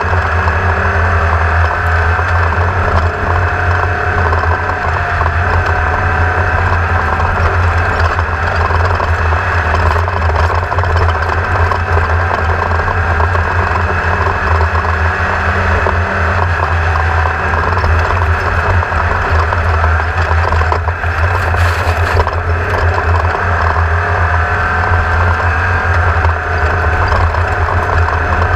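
A machine running steadily: a constant low hum with a noisy drone over it, unchanging in level.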